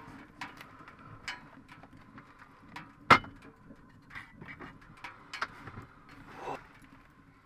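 Scattered light clicks and knocks, with one sharp, loud knock about three seconds in, over a steady low hum.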